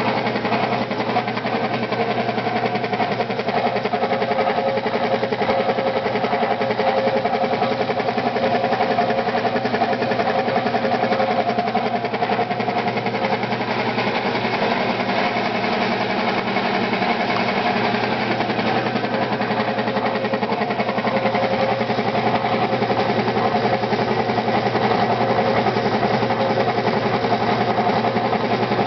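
Speedaire electric air compressor running steadily, its motor and pump making a fast, even mechanical beat.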